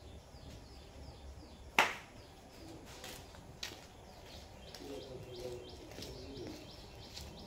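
Small birds chirping over and over, with one sharp clack about two seconds in and a couple of fainter clicks after it.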